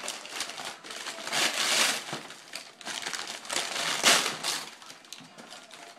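Gift wrapping paper and packaging crinkling and rustling as a present is unwrapped, in irregular bursts, loudest about a second and a half in and again around four seconds in.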